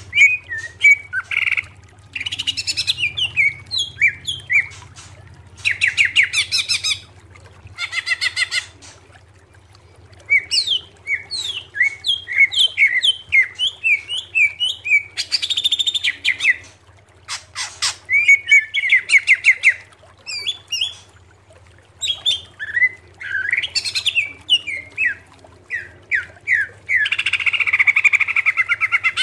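Green leafbird (cucak ijo) singing: loud, varied phrases of quick whistled notes and fast rattling trills, each burst lasting one to three seconds with short pauses between.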